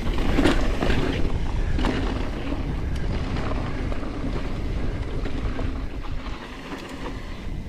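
Wind rumbling on the microphone over the tyre noise of a Foes Mixer mountain bike rolling down a dirt and rock trail. There are a few sharp knocks from the bike in the first two seconds.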